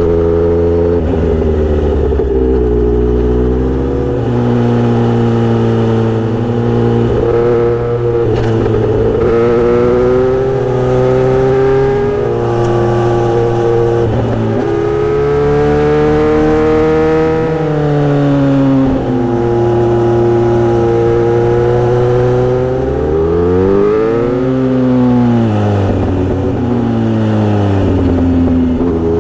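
Kawasaki motorcycle engine running through a Misty Kintaro short-pipe exhaust with a 70 mm L silencer, idling and being revved. The exhaust note rises and falls several times, with one quick sharp blip late on.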